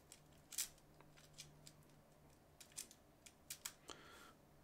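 Light, irregular clicks and taps of small metal reel parts being handled during reassembly of a Daiwa Alphas SV TW baitcasting reel, a dozen or so, the loudest about half a second in.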